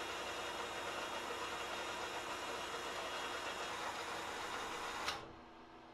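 Clausing Colchester 13-inch metal lathe running with the spindle turning, a steady machine hum and whir. It stops abruptly about five seconds in.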